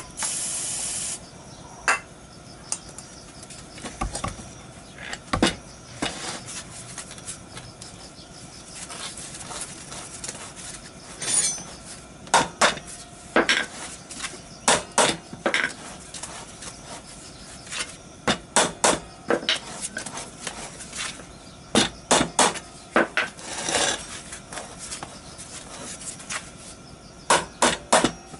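Aerosol spray hissing for about a second, then a hammer striking a scooter's seized rear wheel and hub, in clusters of sharp metallic knocks. The wheel is rusted fast and is being beaten loose.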